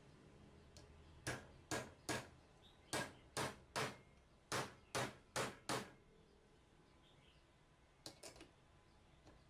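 Steel claw hammer driving a nail into a wooden block: ten sharp blows in three quick runs of three or four. Near the end come a few light metal clicks as the claw is set against the nail.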